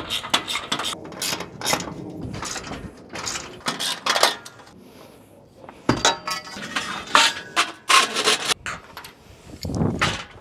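Metal mounting hardware and aluminium rack parts of a ground-mount solar array being handled: scattered clinks, knocks and rubbing, some of them ringing briefly. Near the end comes a duller knock and scrape as a solar panel is set onto the rack.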